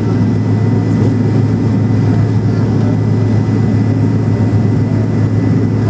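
Cabin noise of a McDonnell Douglas MD-87 taxiing, its rear-mounted Pratt & Whitney JT8D turbofans running at taxi power: a steady low drone and rumble with a faint high whine.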